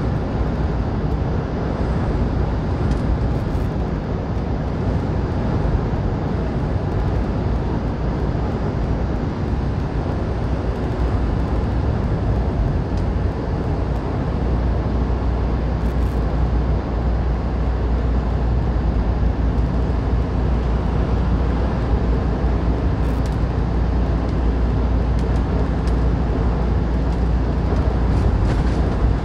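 Semi truck driving at highway speed, heard from inside the cab: a steady, deep rumble of diesel engine and tyre noise.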